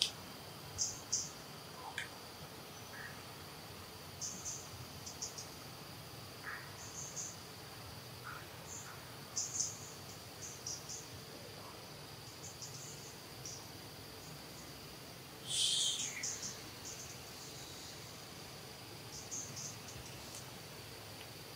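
Insects droning steadily at a high pitch, with short high chirps scattered throughout and one louder, longer chirp about fifteen seconds in.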